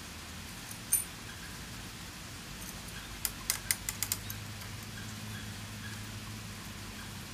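Sharp metallic clicks from hand work at a motorcycle's rear wheel hub and drum brake: one click about a second in, then a quick run of about six clicks near the middle, over a steady hiss.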